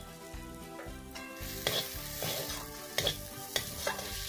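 Steel spatula scraping and knocking against an aluminium kadai, several strokes, as onions frying in mustard oil with chilli powder are stirred, over a light sizzle.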